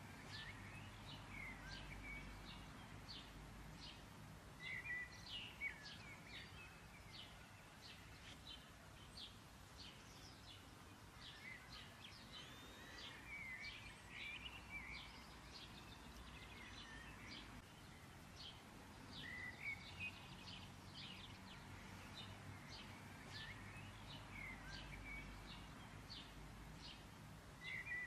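Faint birdsong: small birds chirping and twittering in short, high calls, over quiet steady background noise.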